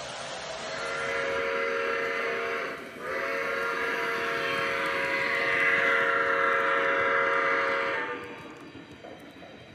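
O gauge model steam locomotive sounding its whistle: a chord of several tones, blown in a short blast and then a longer one of about five seconds.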